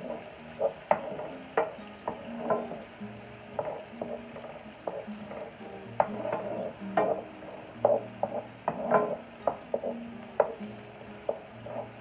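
Wooden spatula stirring diced onion and garlic in a nonstick frying pan, scraping and knocking against the pan in quick, irregular strokes.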